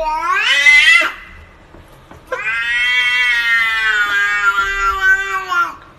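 Domestic cat giving two long, drawn-out meows: the first rises in pitch and breaks off about a second in; the second is held steady for about three and a half seconds, sinking slightly at the end.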